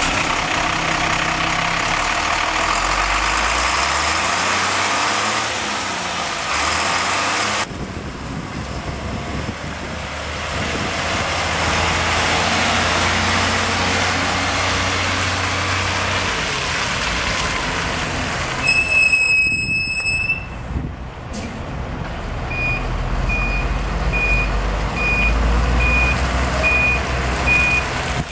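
International 4700 bucket truck's engine running steadily. About two-thirds of the way through, a single long electronic beep sounds; near the end, a warning beeper starts sounding in an even, repeating pattern of short beeps.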